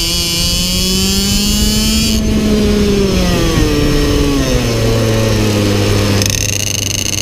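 IAME X30 Super 175 cc two-stroke shifter-kart engine at high revs. About two seconds in the throttle shuts and the revs fall away as the kart slows for a corner. Just after six seconds it is back on the throttle and pulling.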